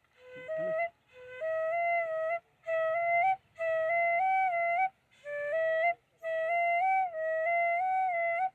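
Background flute music: a melody in short phrases of a second or two, separated by brief pauses, with the notes stepping up and down.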